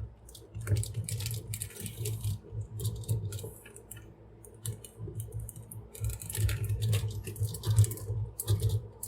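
Toy figure parts being handled and forced into a tight socket: many irregular small clicks and scrapes, with low bumps from the handling.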